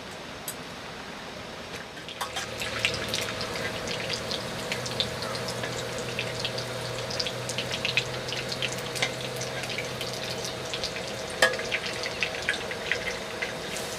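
Food sizzling in a hot pan, with rapid irregular crackles starting about two seconds in over a steady low hum.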